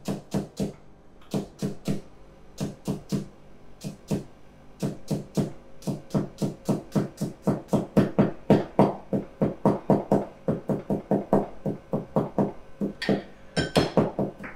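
Chinese cleaver mincing long green onion on a plastic cutting board: a fast, even run of chopping strikes, about four to five a second, with a couple of short pauses. Near the end a ceramic dish gives a light ringing clink.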